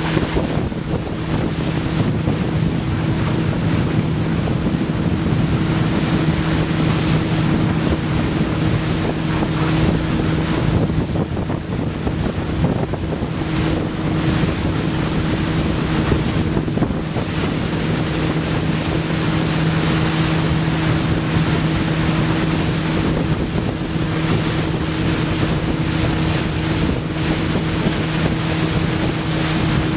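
Tow boat's engine running steadily at towing speed, a constant drone, under the rush of the churned wake and wind on the microphone.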